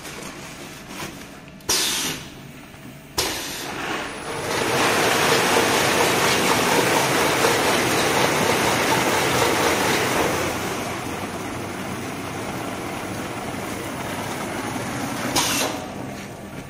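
Powder weighing and bagging machine at work: a sharp hiss as the sack clamp closes, another about a second and a half later, then a steady rush as powder feeds into the woven sack, loud for about five seconds and quieter after that. A further short hiss comes near the end.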